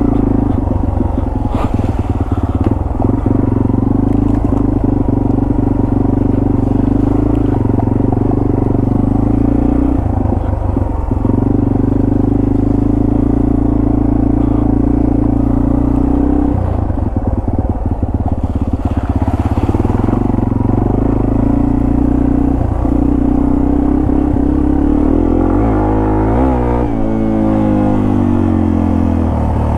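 Yamaha TW200 dual-sport motorcycle's single-cylinder four-stroke engine running under way. The note holds steady, dips briefly a few times, then rises and falls in pitch near the end.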